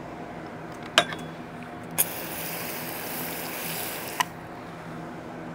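A hand-held water spray, likely a hose nozzle, hissing in one steady burst of about two seconds while fish is cleaned, opened and shut with sharp clicks. A click comes a second earlier, and a steady low hum runs underneath.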